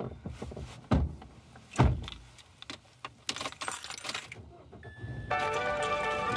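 A car key and key ring jingling as the key is put into the ignition, preceded by two dull thumps about a second apart. Music starts about a second before the end.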